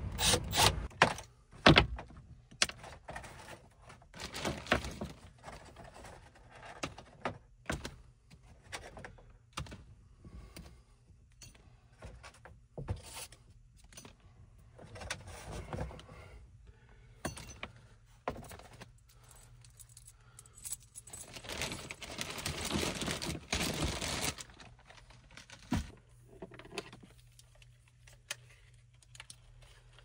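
Clinking, knocking and scraping of hand tools and metal parts being handled at a sheet-metal air handler panel, with sharp knocks in the first two seconds and a couple of seconds of denser rattling and scraping about two-thirds of the way through.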